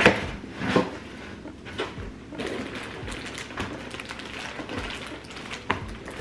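Cardboard box flaps and packaging being handled: rustling and scraping as a box is unpacked by hand, with a few sharp knocks and crinkles.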